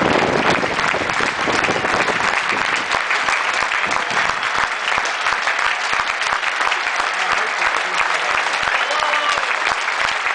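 Large cricket-ground crowd clapping steadily, with voices mixed in.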